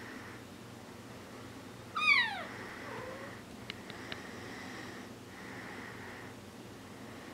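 Four-week-old Bengal kitten giving one loud, high meow about two seconds in that falls in pitch, followed by a faint short mew.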